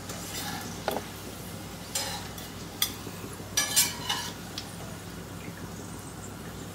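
Steel spoon and slotted strainer clinking and scraping against a kadhai while deep-fried onion slices are lifted out of the oil, over a faint sizzle. There are a few sharp clinks, the loudest a little under four seconds in.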